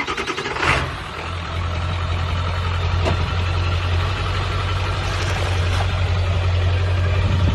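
Vehicle engine idling steadily as a low, even hum, with a brief louder surge about a second in.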